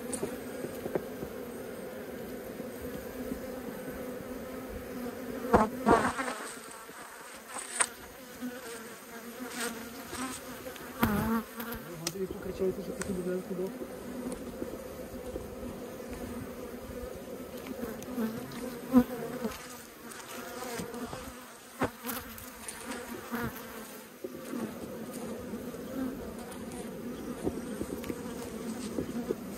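Honeybees buzzing steadily around an opened hive, a constant hum. A few short sharp clicks and scrapes of a metal hive tool on the wooden frame and comb come through now and then.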